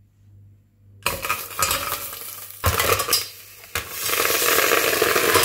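Mussels in their shells tipped into a hot stainless steel pot: shells clattering and knocking against the metal, then from about four seconds in a steady, loud sizzling hiss as the wet mussels hit the hot base and steam.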